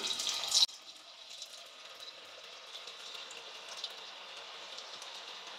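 Masala-coated cauliflower pieces sizzling as they deep-fry in hot oil: a soft steady hiss with small crackles. It is louder for a moment at the start and then drops to a quieter sizzle.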